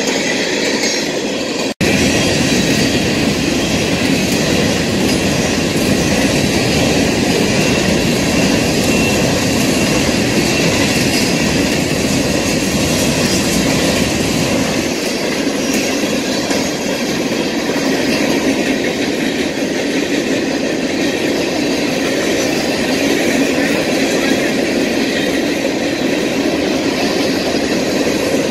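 Freight train of coal hopper cars rolling past: a steady rumble and clatter of steel wheels on the rails. The sound drops out for an instant about two seconds in.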